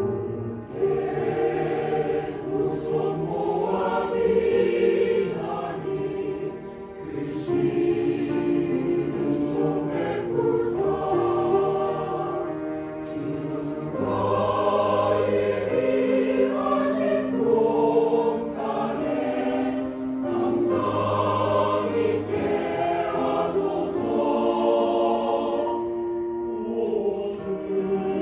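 Mixed church choir singing a slow Korean sacred song in several-part harmony, with piano accompaniment, in long phrases that swell and ease every few seconds.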